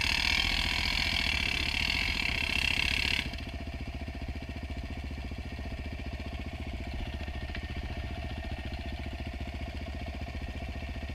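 Quad bike engines running at low revs as they crawl up a rocky trail, a steady low pulsing throughout. A hiss rides over it for about the first three seconds and stops abruptly.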